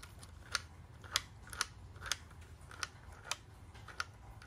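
Key being turned back and forth in a newly fitted tailgate lock cylinder, testing that it works: about seven short, sharp mechanical clicks, a little over half a second apart.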